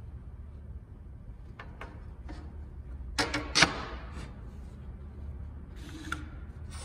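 Light knocks and clicks of hand work on the stainless steel inlay at the door's routed recess, with a quick cluster of sharp knocks about three and a half seconds in, over a steady low hum.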